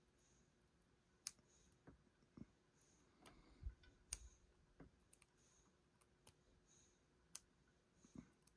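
Faint, scattered clicks and light taps of small metal parts as a picked lock is handled and taken apart, with three sharper clicks spread through the quiet.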